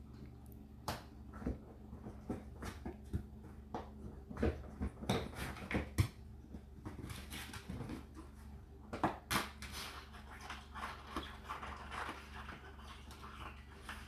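Dishwasher drain pump running with a steady hum, overlaid by irregular gurgles, slurps and clicks as it draws water and air out of the sump.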